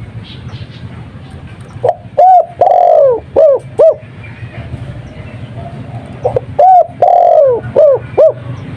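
Spotted dove (tekukur) singing the Madura 'kuk 2' song twice, a lure call for other doves. Each phrase is a run of short coos with a longer, falling note in the middle. A steady low hum runs underneath.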